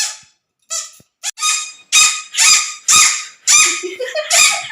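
A squeaky dog toy squeaked over and over in quick short bursts, about two a second and coming faster, while a dog plays with it; a lower wavering sound joins near the end.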